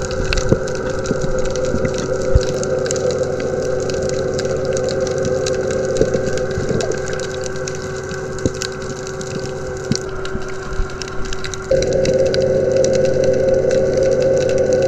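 A steady motor drone heard underwater, sprinkled with many small sharp clicks. The drone steps up in loudness about twelve seconds in.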